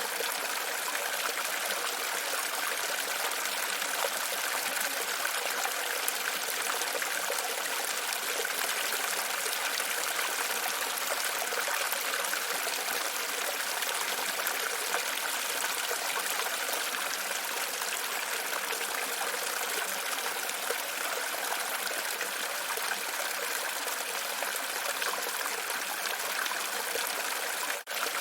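Steady trickling and splashing of running water, with a brief dropout just before the end.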